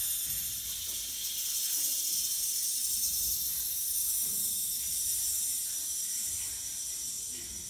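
A steady hiss of noise in an electronic dance soundscape, swelling in at the start and easing off slightly near the end.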